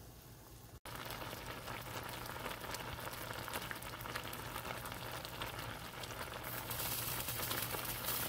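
A pot of sorrel (roselle calyces) boiling hard, with steady bubbling and popping. A brief dropout comes just under a second in; after it the boil is louder, and it grows louder again near the end.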